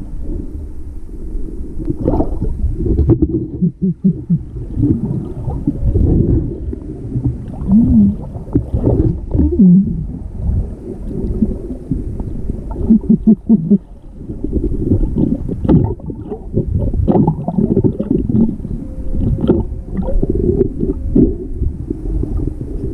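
Humpback whale calls heard underwater: several short, low grunts and moans, some in quick runs of three or four pulses, over a steady low rush of water.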